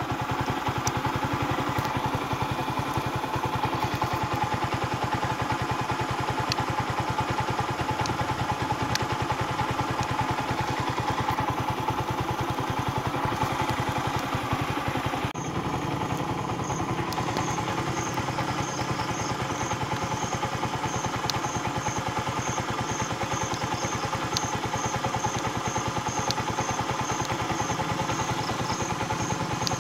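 Kawasaki Rouser/Pulsar LS135's single-cylinder four-stroke engine running steadily, with a brief dip in the sound about halfway through. After the dip a faint high chirp repeats about twice a second over the engine.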